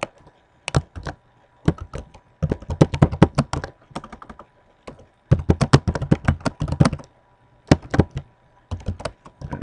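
Typing on a computer keyboard: quick runs of keystrokes in several bursts with short pauses between, after a single click at the start.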